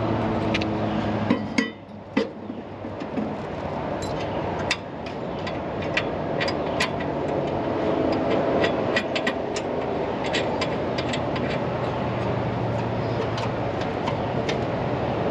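Scattered metal clinks and knocks of tools and steel mower blades being handled as fresh blades are fitted to a Cub Cadet ZT1 zero-turn mower deck, over a steady mechanical hum that dips briefly about two seconds in.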